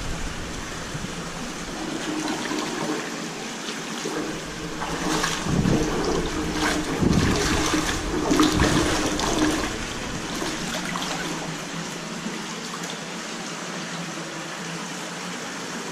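Shallow creek water running and trickling, with sloshing and splashing for several seconds in the middle as the water is stirred.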